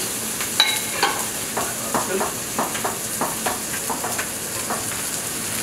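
Onion, capsicum and tofu sizzling in a frying pan on a gas burner, with a steady run of light clicks and taps from kitchen tongs, about three a second.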